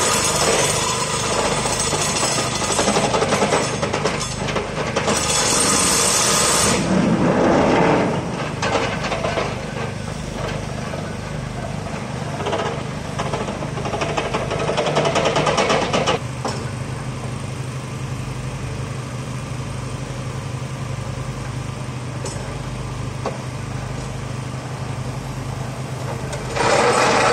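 Excavator-mounted sheet-piling and pre-boring rigs at work over their diesel engines, making a loud, rapidly pulsing machine noise. About sixteen seconds in the working noise cuts off suddenly, leaving the diesel engines running steadily with a low hum. A loud burst of working noise starts again near the end.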